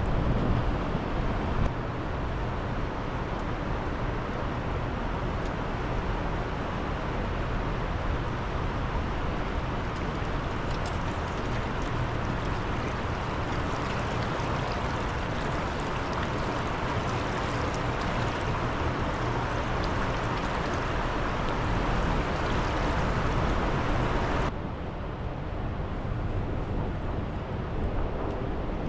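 Steady rushing of fast, heavy river current. About 24 seconds in, it suddenly becomes quieter and duller.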